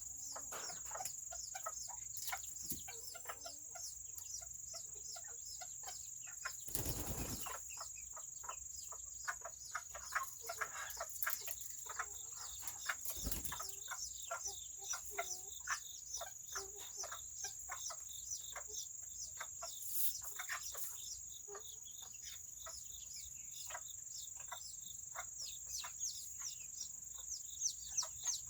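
Serama chickens clucking and peeping in quick short calls, with a brief burst of wing-flapping about seven seconds in. Near the end a regular run of peeps, about two a second, grows louder.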